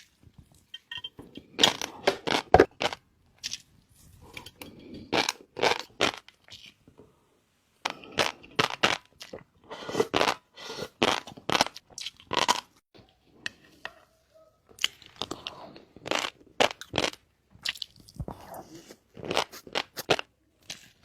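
Close-miked eating of shrimp topped with fish roe: chewing with quick clusters of sharp crunches and pops, and a short pause about seven seconds in.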